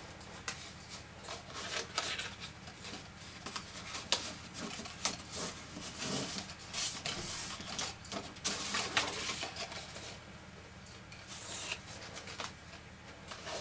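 Grey cardstock being folded down and pressed by hand: scratchy rubbing and rustling of card with many small clicks and taps as the box sides and flaps are creased into place.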